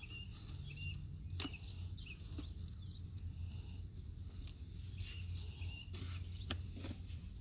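Sharp clicks and knocks, several times, typical of wooden hive frames being handled, over a low steady hum, with short bird chirps in the background.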